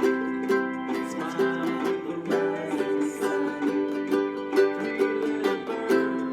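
Music: a ukulele strummed in chords at a steady rhythm of about two strums a second.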